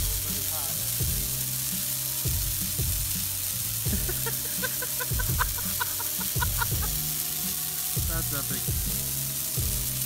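A bonfire of dry Christmas trees burning with a steady crackle and hiss, sparks flying up. Music with a steady beat plays underneath.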